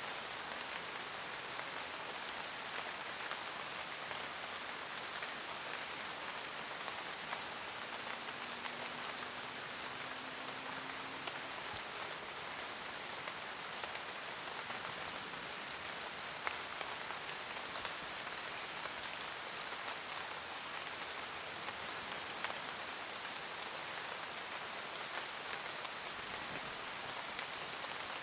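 Steady rain falling in a forest: an even hiss with many individual drops ticking through it.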